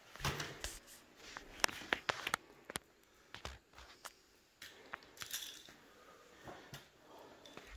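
Small objects being handled and rummaged through: a scatter of light clicks and crinkly rustles, densest in the first few seconds.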